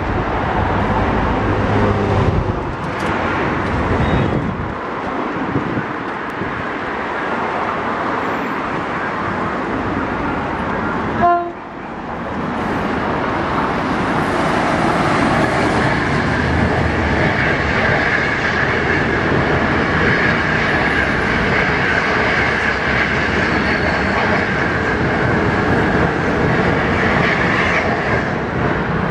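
An HXD1D electric locomotive hauling 25K passenger coaches passes by. It gives a brief horn blast about eleven seconds in, followed by steady wheel-on-rail rolling noise as the coaches go by.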